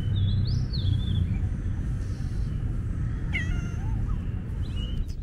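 Calico cat meowing once, a little past three seconds in, over a steady low rumble.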